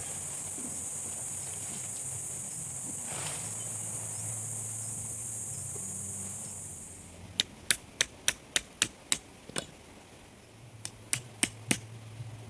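Insects droning with a steady high buzz, which cuts off suddenly after about seven seconds. A run of sharp knocks follows, about three a second, then a short pause and three more, like hammer strikes.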